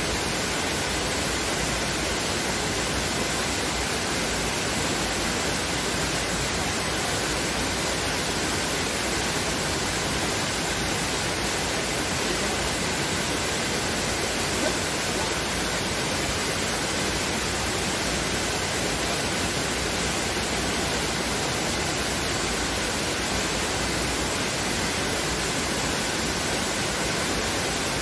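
Steady, unchanging rush of a small waterfall plunging into a pool.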